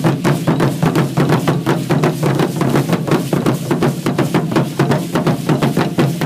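Aztec danza drumming: a steady, fast drum beat of several strokes a second, with sharp percussive clatter over it.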